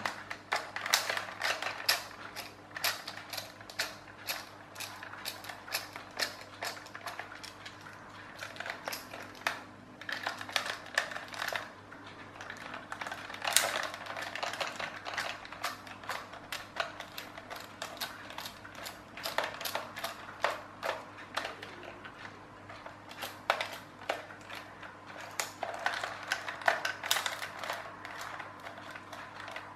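Precision screwdriver working screws out of a plastic clockwork toy tractor's housing: a steady run of irregular sharp clicks and small plastic knocks, several a second, with busier patches now and then.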